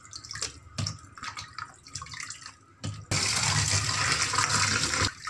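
Light clinks and splashes as washed raw chicken pieces are handled on a steel plate in a stainless-steel sink. About three seconds in, the kitchen tap gushes water onto a steel plate held under it, a steady loud splashing that stops just before the end.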